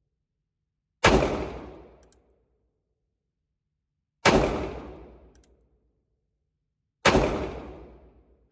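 North American Arms .22 Magnum mini revolver firing three shots about three seconds apart. Each shot is a sharp crack that fades out over a second or so.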